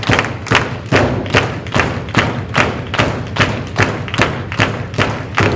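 Audience clapping in unison to a steady beat, about two and a half claps a second.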